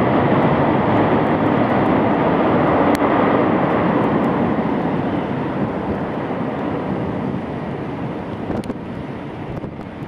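The four jet engines of a Boeing 747-400F freighter rolling out on a wet runway just after landing: a steady, loud rush that slowly dies away over the second half.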